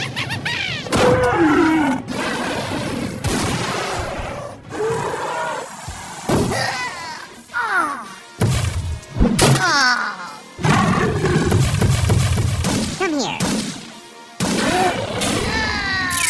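Cartoon soundtrack: music with sound effects, including many sliding, squeaky tones that rise and fall and some thuds, with abrupt cuts between them.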